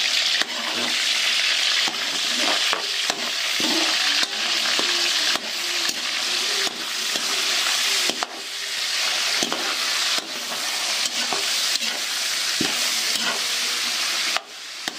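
Pork frying with a steady sizzle in a pan, stirred with a spatula that scrapes and clicks against the pan at irregular moments. The meat is close to browning.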